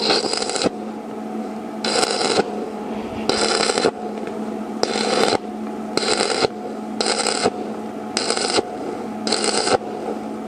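Manual stick (arc) welding on a steel wheelbarrow frame: the arc crackles and hisses in about eight short bursts, roughly one every second and a half, as the weld is laid in short stitches.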